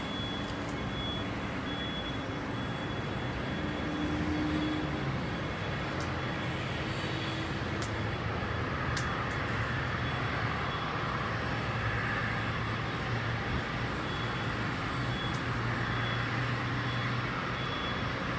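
Steady engine noise of a distant military airplane in flight, a continuous rumble with a low hum.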